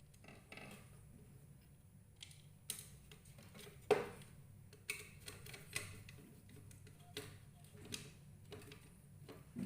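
Scattered small clicks and taps of hand work on a Siemens fire alarm monitor module's screw terminal, as a cable is fitted and the terminal screw is worked with a screwdriver. The clicks come irregularly, about eight of them, the sharpest about four seconds in.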